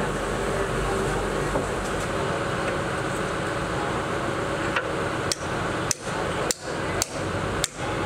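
Six sharp hammer blows on steel, about two a second, starting about halfway through, each with a brief metallic ring: a hammer driving the steel pivot pin into an excavator bucket's linkage. A steady mechanical hum runs underneath.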